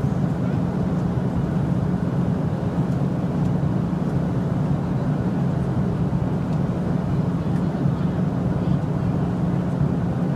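Steady cabin noise of a Boeing 737 airliner in flight: the engines and rushing air give a constant low drone that does not change.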